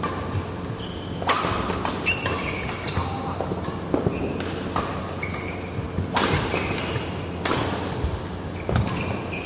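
Badminton rally: rackets hitting the shuttlecock in a series of sharp cracks, about one to one and a half seconds apart, echoing in a large hall. Short shoe squeaks on the court floor come between the hits.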